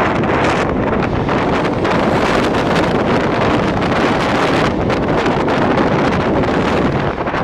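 Two express trains crossing at speed on adjacent tracks, heard from the open doorway of one: a loud, dense rush of air and wheel-on-rail noise with fast, continuous clattering from the passing coaches' wheels, and wind buffeting the microphone.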